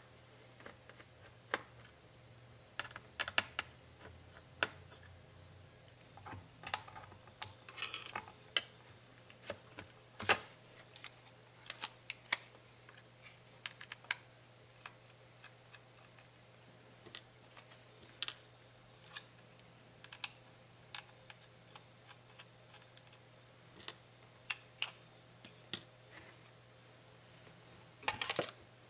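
Scattered small clicks, taps and knocks of hard plastic and metal parts being handled as a laptop's 2.5-inch hard drive is lifted out of its bay and worked on with a small screwdriver. The clicks come irregularly, with a quick cluster near the end.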